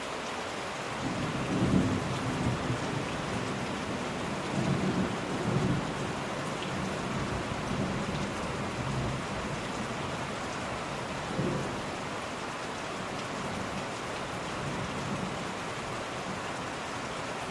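Steady rain with several low rumbles laid over it, the loudest about two and five seconds in and a short one near eleven seconds.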